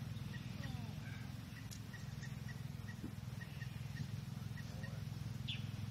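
Outdoor ambience on a golf tee: a steady low rumble under a faint, short high chirp that repeats about three times a second, with faint distant voices.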